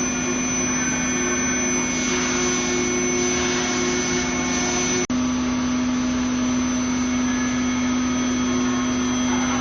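CNC machine tool running steadily, with a high steady whine and a lower hum over a hiss. The sound drops out for an instant about five seconds in, then carries on.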